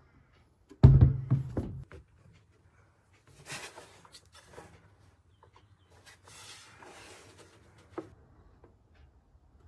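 Handling noises from unboxing a pistol safe: a heavy thump with a short rumble about a second in, then two stretches of rustling packaging and a sharp click near the end.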